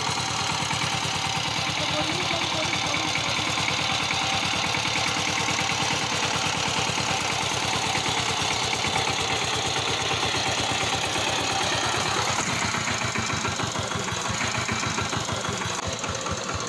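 Single-cylinder diesel engine of a two-wheel power tiller running with a rapid, steady knocking beat that slows near the end.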